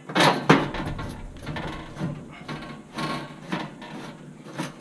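Screw being driven by hand with a screwdriver into the sheet-metal heat shield on the oven floor, with metal clattering and scraping: two sharp knocks just after the start, then a string of irregular scrapes and clicks as the screwdriver turns.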